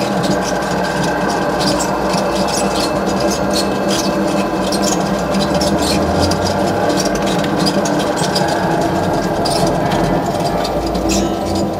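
Electric potter's wheel (throwing machine) running with a steady motor hum, under a fast scatter of wet clicks and squelches from hands shaping the spinning wet marbled clay.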